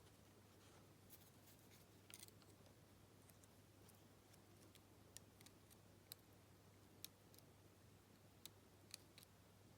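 Near silence broken by faint, scattered small clicks and taps of a Lockwood 225 wafer padlock's metal parts being handled as its retaining wafer is pushed back into place.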